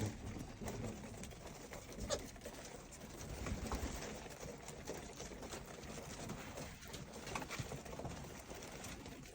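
Caged doves cooing while they feed, with a few scattered small clicks.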